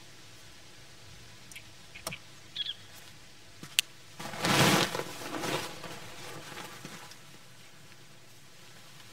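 Nylon tent rainfly rustling and flapping as it is swung over a dome tent: a loud whoosh of fabric about four seconds in that fades out over the next couple of seconds. Before it, a few light clicks.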